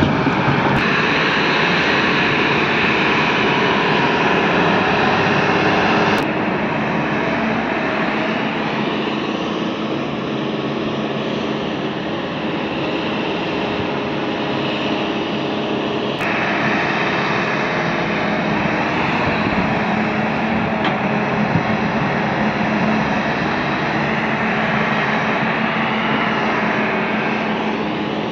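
Heavy diesel earthmoving machinery running steadily at close range: a Kobelco excavator loading a dump truck at first, then a Caterpillar 120 motor grader's engine. The sound is a loud, even roar that shifts abruptly about six seconds in and again about sixteen seconds in.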